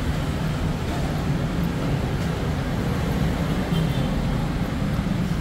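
Steady low rumble of a busy commuter rail station concourse, with faint voices of people passing.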